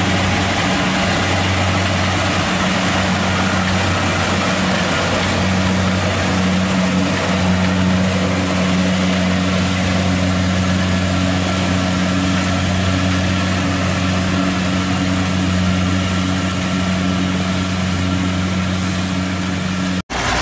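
Kubota 70 combine harvester's diesel engine running steadily as it cuts rice, a constant low drone.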